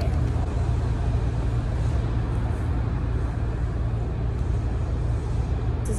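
Steady low rumble of city traffic noise, with no distinct single event standing out.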